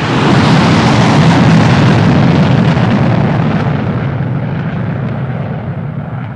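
An aircraft flyby sound effect played on an electronic keyboard: a rushing roar that swells to its loudest about a second in, then slowly dies away.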